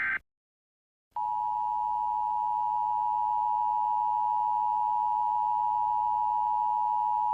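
The end of an Emergency Alert System data burst (the SAME header) cuts off just after the start. After about a second of silence, the EAS attention signal begins: a steady two-tone alarm that holds without change.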